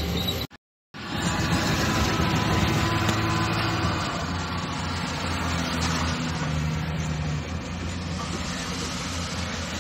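Engines of heavy diesel machinery running steadily at a sand-mining site, a low hum under a noisy rumble. The sound cuts out to silence for a fraction of a second just after the start, then carries on.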